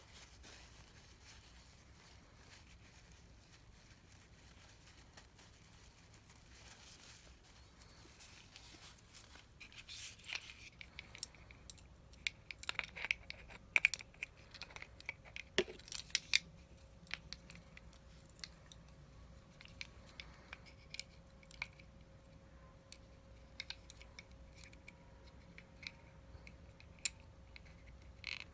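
Small clicks, ticks and short scratchy rustles of hand work with small parts and tools on a workbench, busiest in the middle. A faint steady hum comes in about halfway.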